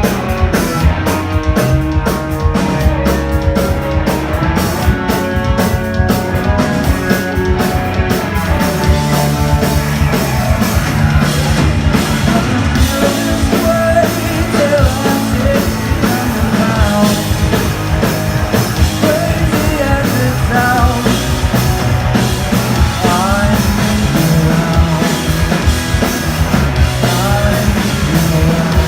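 Rock band playing live: a drum kit and amplified guitars and bass, with a melodic line over the top.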